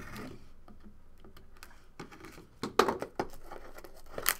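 A sealed cardboard trading-card box being unsealed and opened by hand: plastic wrap slit and rustling, with irregular clicks and taps of cardboard being handled. The loudest clicks come a little under three seconds in and again near the end.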